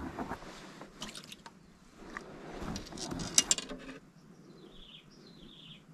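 Handling noise from baiting a hook and setting a bamboo pole rod from a wooden boat: rustling with a few sharp clicks, the loudest about three and a half seconds in. Then a bird calls in short falling chirps near the end.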